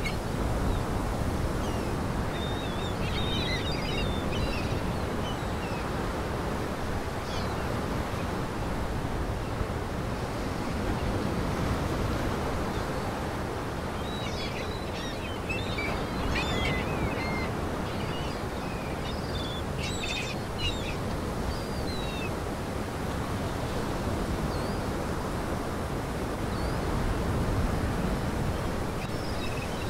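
Steady rushing outdoor noise with small birds chirping in scattered bursts: a few seconds in, again through the middle, and near the end.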